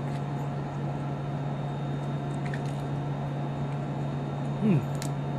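Steady hum of the space station's cabin fans and ventilation, with a few faint clicks as coffee is sipped through a straw from a drink pouch. A short falling "mm" from the drinker comes near the end.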